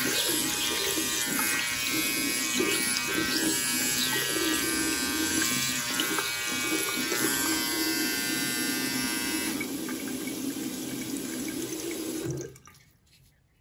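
Tap water running onto a Philips OneBlade trimmer head as it is rinsed over a sink, with the trimmer's motor buzzing under the stream. The buzz stops about nine seconds in, and the water sound cuts off near the end.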